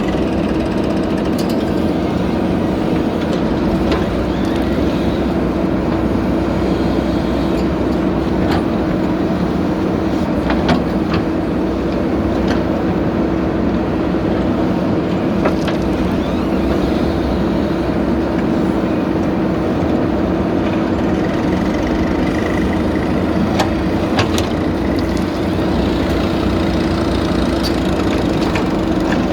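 Diesel engine of a JCB backhoe loader running steadily at a constant speed, with a few scattered knocks and clanks over it.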